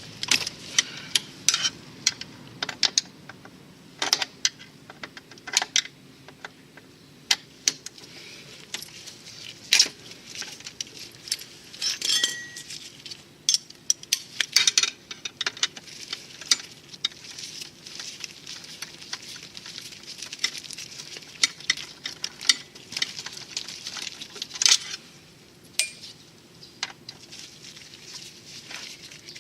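Hand tools and small metal parts clinking and clicking irregularly, with a few sharper knocks, during work on a scooter's brake caliper.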